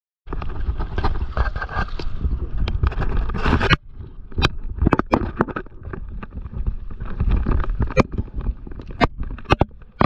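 Water and wind noise rushing over an action camera's microphone on a stand-up paddleboard in surf, a loud low rumble that cuts off abruptly about four seconds in. After it, quieter water splashing against the board with many sharp knocks and clicks.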